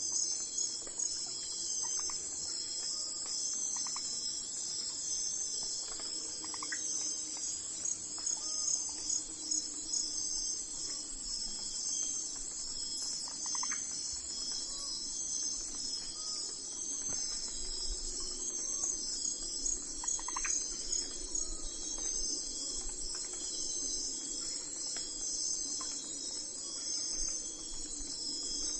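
Steady, high-pitched chorus of crickets trilling without a break, with short faint chirps scattered through it.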